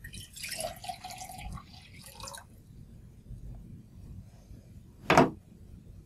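Water poured from one glass beaker into another: a smooth stream splashing into the water below for about two and a half seconds, then stopping. A brief short sound about five seconds in.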